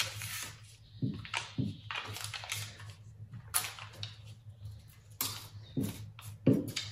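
Glue stick rubbing along the edge of gold foil paper wrapped round a headband, in short irregular scrapes, with the foil crinkling and light handling taps. A low steady hum runs underneath.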